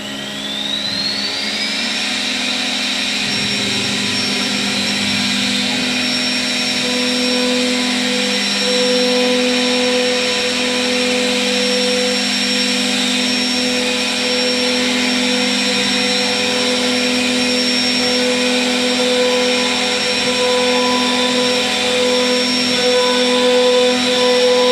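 CNC wood router's spindle running and its bit cutting a groove into a wooden door panel. A whine rises in pitch over the first two seconds, then holds steady over a steady hum while the cut goes on.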